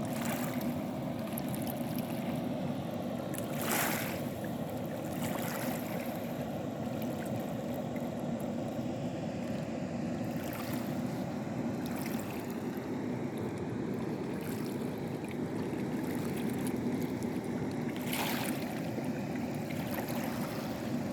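Water released through a low river dam, rushing and splashing in a steady roar, with a brief sharper hiss about four seconds in and again near the end.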